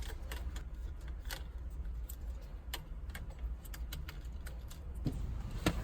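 Scattered light clicks and small rattles of plastic and wiring as a wire harness is worked past under a car's steering column.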